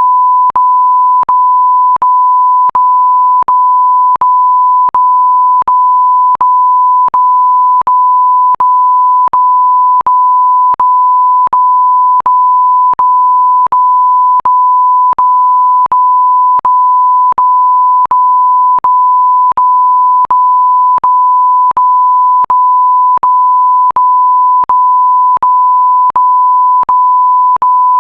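Electronic beep sound effect: a loud, steady pure tone. About every three-quarters of a second it breaks for an instant with a faint click, so it runs as a long string of long beeps.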